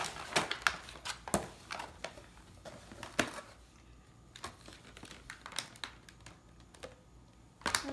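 Plastic and cardboard toy packaging being handled and torn open: scattered clicks and crinkles, busiest in the first couple of seconds and again near the end.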